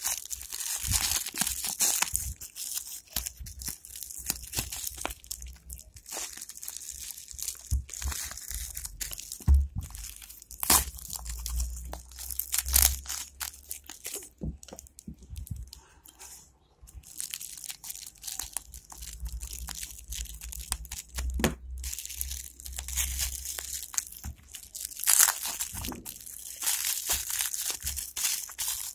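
Thin plastic bag wrapping crinkling and rustling as hands pull and work at it, in irregular crackly bursts with scattered sharp clicks of handling.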